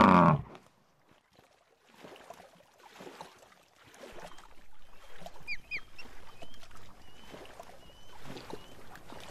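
A bison's deep grunt cuts off in the first half-second. Then an osprey gives two quick high whistled calls, falling in pitch, about five and a half seconds in, followed by a string of fainter short chirps.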